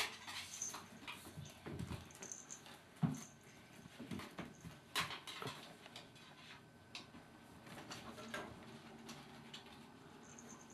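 Kittens playing, with scattered light pattering, scuffling and a few soft thumps, one sharper thump about three seconds in.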